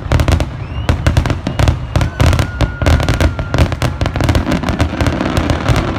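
Fireworks display going off in a rapid, dense string of bangs and crackles, with a short rising whistle about a second in and a longer whistling tone around the middle.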